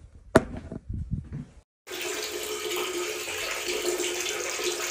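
Knocks and rustles with one sharp click, then, after a brief cut, a steady rush of running water from a tap with a faint low hum.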